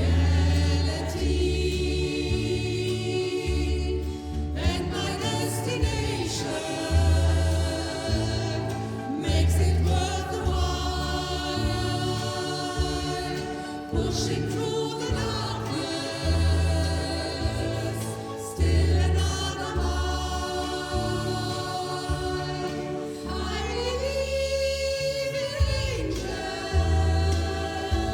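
An amateur choir singing, several voices together over low bass notes that repeat in a steady rhythm.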